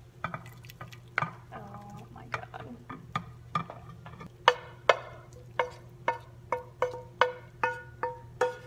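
Light plucked background music, a note repeated a few times a second, with sharp taps and scrapes of a spatula pushing cooked corn out of a nonstick frying pan into a glass baking dish.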